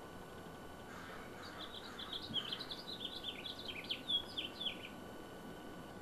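A wren singing: a rapid jumble of high notes, rising and falling, starting about a second and a half in and lasting about three and a half seconds.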